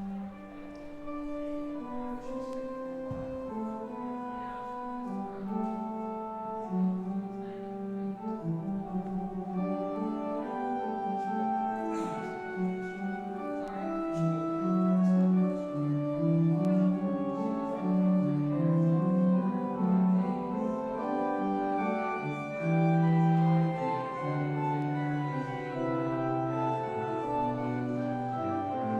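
Organ music: a slow instrumental piece of sustained notes in chords and moving lines, getting somewhat louder about halfway through.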